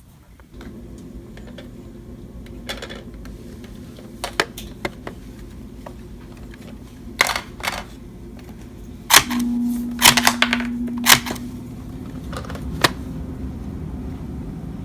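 Sharp plastic clicks and snaps from a toy RC car's body and parts being handled and pried apart, some single and some in quick clusters, over a steady low hum.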